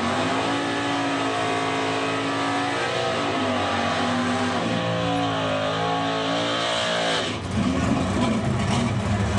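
Drag-racing car engine held at high revs through a burnout, its pitch wavering. About seven seconds in, the sound cuts to a car engine revving hard as the car runs down the strip.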